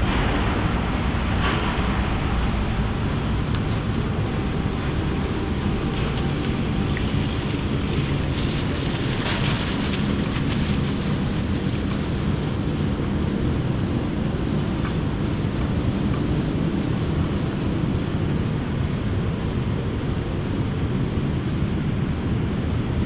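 Steady outdoor city ambience: a low rumble of distant traffic mixed with wind on the microphone.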